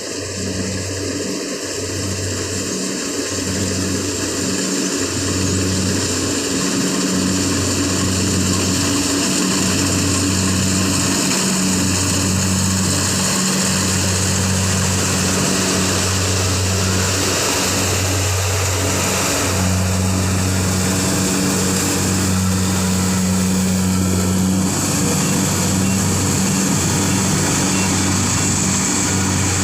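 Kubota-engined rice thresher running steadily: an engine drone that pulses slightly, with a loud hiss of threshing over it. It grows louder over the first few seconds, then holds steady.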